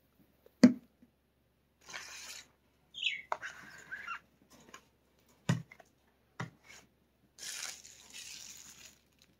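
Items being handled: a sharp knock under a second in, a few lighter clicks, and stretches of rustling. A pet bird chirps briefly about three seconds in.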